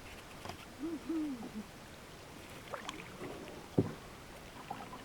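Two short, low hoots about a second in, each rising and falling in pitch, then a single sharp knock near the four-second mark.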